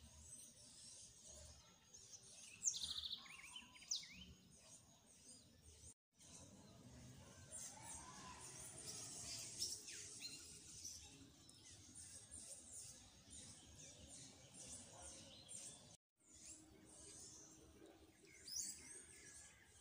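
Faint chorus of small birds chirping, many quick high chirps, with one louder short call about three seconds in. The sound drops out briefly twice.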